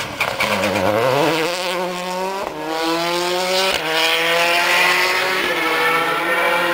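Rally car engine accelerating hard away from a corner, its note climbing and dropping back at each upshift, three gear changes in quick succession.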